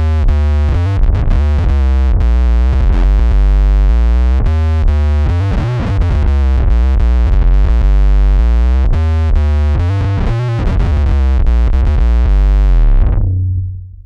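Electric bass played through an MXR Poly Blue Octave pedal with fuzz and an octave down, into an Ampeg SGT preamp: a thick, synth-like line of quickly changing notes with heavy low end, the last note fading out near the end.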